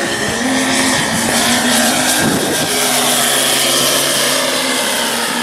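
Scale model Stearman PT-17's Moki seven-cylinder four-stroke radial engine running at power as the plane makes a low pass. A little under halfway through, the engine note drops in pitch as it goes by.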